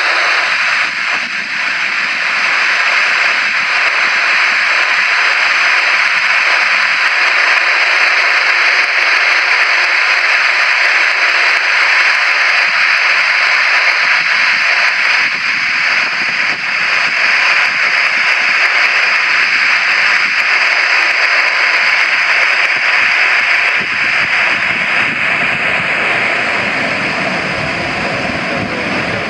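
Boeing 737-800's CFM56-7B turbofan engines at takeoff thrust: a steady jet roar through the takeoff roll and climb-out, with a deeper rumble coming in near the end.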